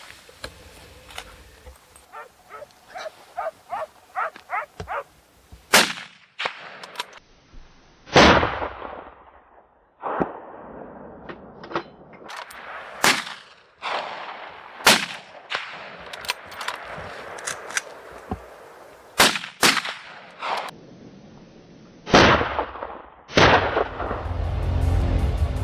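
Hunting gunshots fired at a running group of wild boar: about eight loud shots a few seconds apart, several trailing off in an echo. A run of fainter, quicker sharp sounds comes in the first few seconds.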